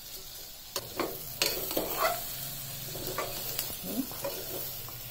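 Chopped onions and carrots frying in oil in a pan with a steady sizzle, stirred with a spatula that clicks and scrapes against the pan several times in the first couple of seconds.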